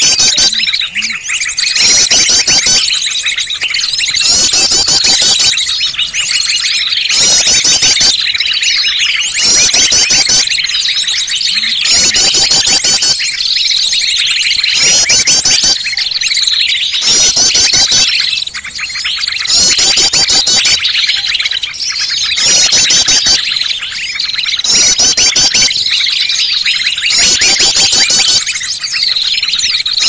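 Bird-lure (pikat) recording of many small birds chirping together in a loud, busy chorus, used to draw wild birds in. A rapid high chatter repeats in bursts about every second and a half over a steady high tone.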